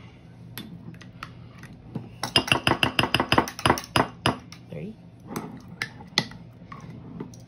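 Metal spoon tapping and scraping against a ceramic bowl as spoonfuls of sticky apricot preserves are knocked off into it, with a quick run of taps about two seconds in.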